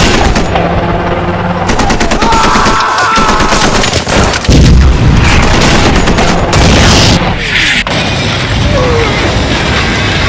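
Battle sound effects: rapid bursts of machine-gun fire and gunshots, with a loud boom about four and a half seconds in.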